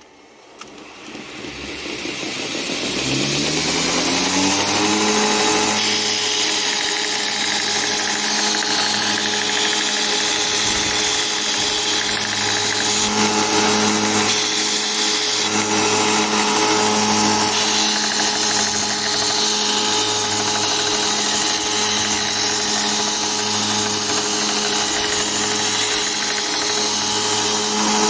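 2 HP belt-grinder motor, on a VFD, spinning up. Its pitch rises smoothly over the first few seconds, then it runs steadily, driving the 2x72-inch sanding belt with a slow, regular pulsing. At times an aluminium plate pressed to the running belt adds a louder grinding noise.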